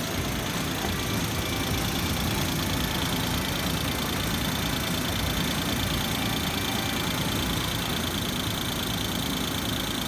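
Suzuki Jimny JA11's small three-cylinder engine idling steadily, running with its exhaust manifold repaired by welding.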